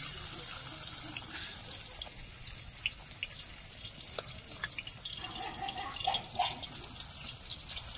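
Rohu fish pieces frying in hot oil in a metal karahi, a steady sizzling and crackling with fine spitting pops.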